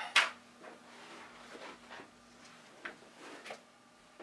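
A sharp scrape or knock a fraction of a second in, the loudest sound, then a handful of fainter scrapes and taps over a faint steady hum.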